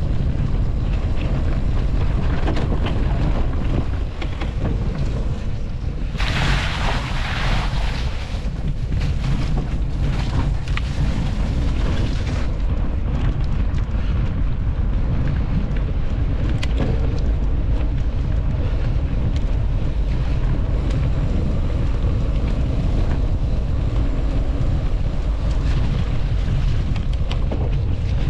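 Wind buffeting a GoPro Hero 11 Black's microphone while riding a mountain bike at speed, a steady heavy low rumble. For about six seconds near the middle a brighter hiss joins it.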